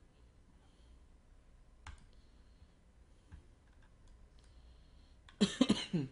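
A few soft clicks from a computer mouse and keyboard. Near the end comes a brief, louder sound whose pitch falls.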